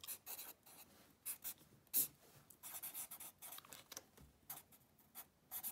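Felt-tip marker writing on sketchpad paper: short, faint strokes that start and stop, each a quick scratch of the tip across the page.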